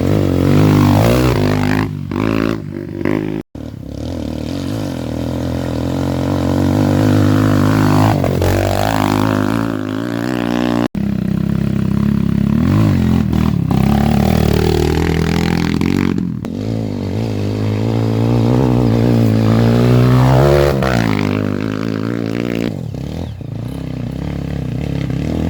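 Off-road trail motorcycle engine running hard, its revs rising and falling again and again as the bike climbs the trail.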